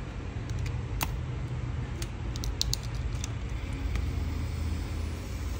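A few sharp clicks and taps from hands handling a phone's plastic frame and screen assembly: one about a second in, another near two seconds, then a quick cluster of clicks soon after. Under them runs a steady low rumble.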